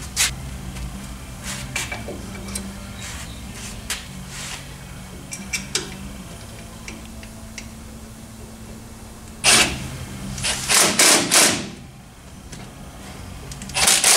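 Light metal clicks and knocks as a rear disc brake caliper is fitted over the rotor, over a steady low hum. About two-thirds of the way in comes a cluster of several loud, short, rushing bursts, and another near the end.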